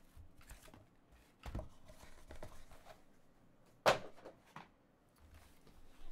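Cardboard trading-card boxes being lifted out of a foam-lined case and set down on a table: soft scuffs and knocks, with the loudest sharp knock just under four seconds in.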